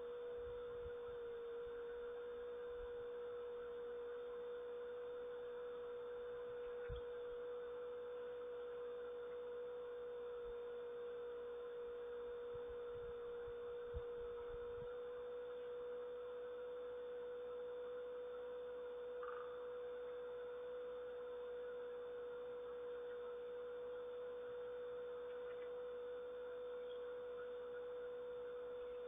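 A steady, unbroken hum on a single pitch over a faint hiss, with a couple of soft clicks about a quarter and halfway through.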